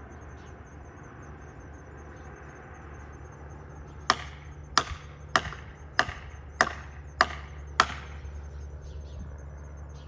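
Seven sharp blows struck at the base of a tree trunk being felled, about one every 0.6 s, starting about four seconds in, each with a brief ringing decay.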